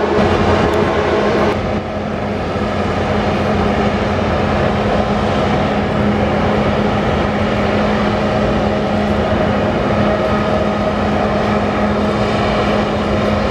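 Riverine patrol boat's engines running steadily at speed, a constant droning hum over the rush of water from its wake.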